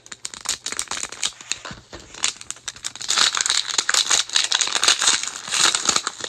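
Thin plastic shrink wrap crinkling and tearing as it is slit with a utility knife and peeled off a plastic capsule ball. The crinkling starts as scattered crackles and turns dense and loudest from about halfway through.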